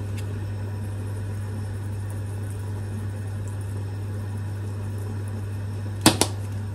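A steady low hum, with two sharp clicks close together near the end, as the plastic flip-top lid of a dried-herb shaker jar snaps shut.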